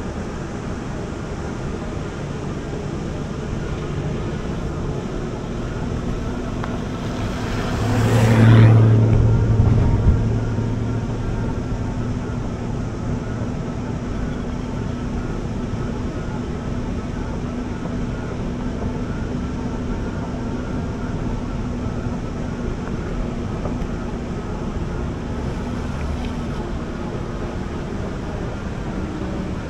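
Steady riding noise from an e-bike on a beach. About eight seconds in a louder rush swells and fades over a couple of seconds.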